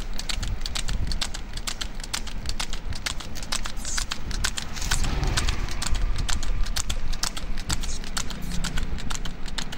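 Hooves of a male water buffalo clopping rapidly on asphalt as it trots pulling a cart, over a steady low rumble.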